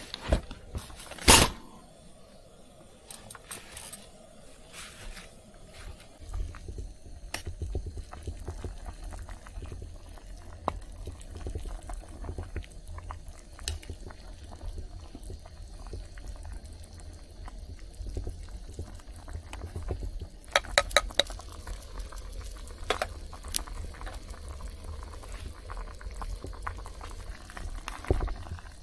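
A pot bubbling on a camp stove, with a low steady rumble setting in about six seconds in. Scattered small clicks and clinks of cookware throughout, with a sharp one near the start and a quick cluster about twenty seconds in.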